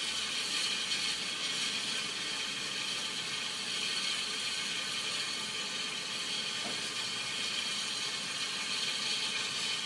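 Santa Fe #3751 steam locomotive giving off a steady hiss of steam, with an even mechanical whir under it.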